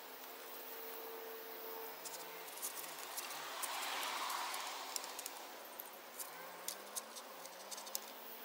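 Light clicks and taps of galvanized steel telescoping tent poles being handled, scattered over several seconds, with a brief rush of noise near the middle.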